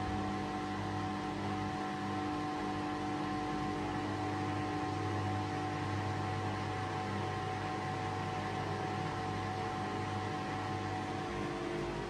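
A 5 kg washing machine running a quick wash programme: a steady motor hum with a few whining tones over a noise bed, unchanging throughout.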